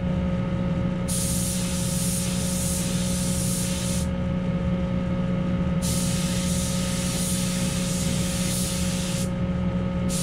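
Gravity-feed spray gun spraying primer in bursts of hiss a few seconds long, with short pauses between trigger pulls. A steady low hum runs underneath.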